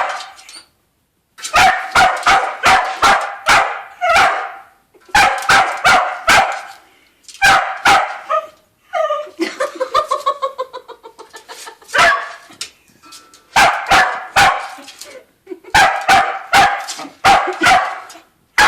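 Dog barking in rapid volleys of several barks each, broken by short pauses, with a longer rough, pulsing sound between barks about halfway through.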